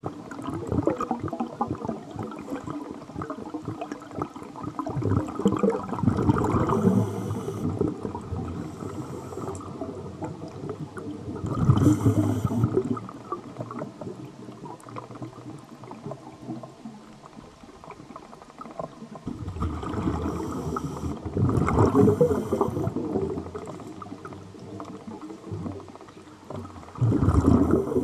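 Scuba diver breathing through a regulator underwater: a hiss on each inhale and a gush of gurgling bubbles on each exhale, several breaths a few seconds apart.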